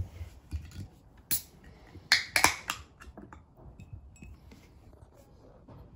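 Aluminium beer can being opened: a click, then about two seconds in a sharp pop and short hiss of escaping gas as the pull tab breaks the seal, followed by a few small clicks.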